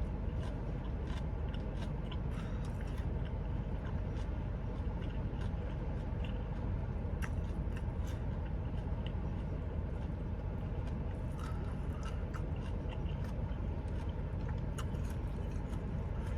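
Close-up chewing and biting of food, with many small scattered crunches and wet mouth clicks, over a steady low rush of air conditioning running in the room.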